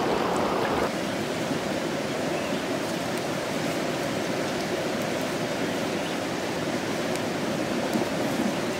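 Shallow water running over the stones of a rocky stream. About a second in, it drops to a quieter, steady rushing with a few faint ticks.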